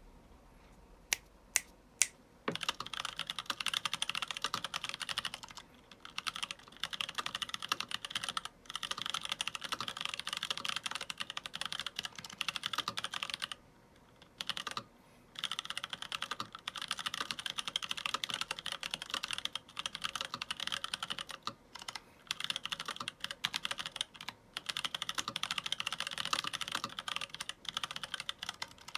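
Mechanical keyboard being typed on: unlubed NovelKeys Blueberry tactile switches under ARCHON Ninja PBT keycaps in a Ninja87 aluminium case. Three separate sharp key strikes come in the first couple of seconds, then fast, steady typing with a few short pauses.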